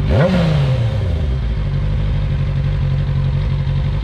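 Kawasaki Ninja 600 sportbike engine blipped once right at the start, its pitch shooting up and falling back within about a second, then settling into a steady idle.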